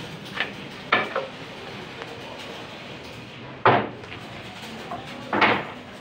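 Wooden planks of narra wood knocking as they are set down and stacked on a pile of boards: a few sharp knocks, the loudest about two-thirds of the way through and another near the end.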